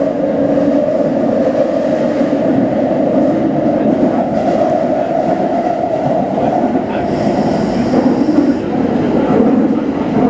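Kintetsu Series 21 electric train running at speed, heard from inside the car: a steady rumble of wheels and motors on the rails, with a brief higher hiss about seven seconds in.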